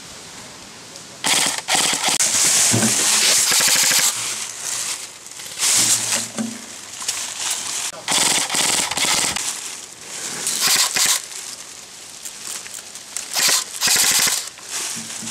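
Airsoft electric guns firing several full-auto bursts, each a fast, rattling string of shots. The longest burst comes near the start and lasts almost three seconds; shorter bursts follow.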